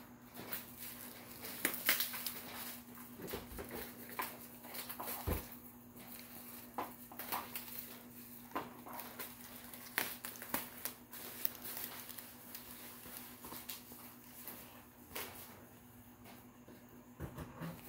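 Handling noises from assembling a hearse prop: irregular clicks, taps and rustles as parts and lamp cords are fitted, over a steady low hum.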